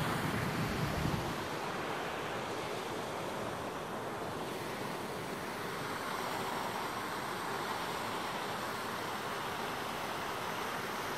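Steady outdoor hiss of wind and sea on a phone microphone, with low wind buffeting on the microphone for about the first second.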